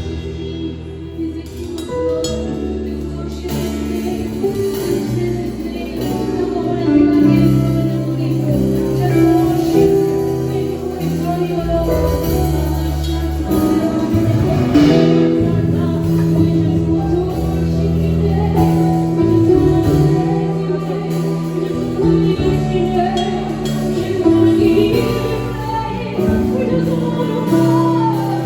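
Gospel worship song: singing over steady instrumental backing.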